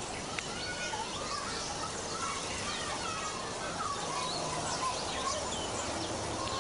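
Birds chirping and twittering: many short rising and falling calls over a steady background hiss.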